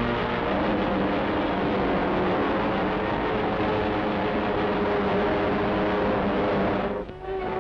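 Piston engines of a propeller airliner running loud and steady, a dense rumble with several held engine tones, as it prepares to take off. The sound cuts off about seven seconds in.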